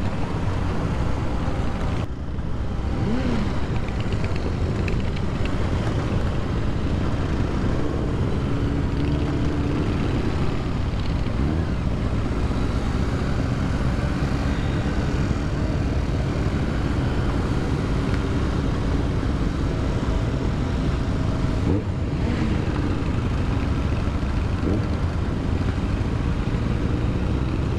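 Aprilia RS 125 motorcycle being ridden in traffic, its small single-cylinder engine running under a steady rush of wind and road noise on the camera's microphone.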